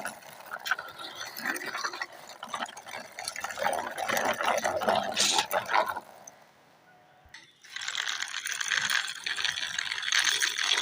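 Plastic toy dump truck pushed by hand, its wheels and loose plastic parts scraping and rattling with lots of small clicks. It stops for a moment about six seconds in, then starts again.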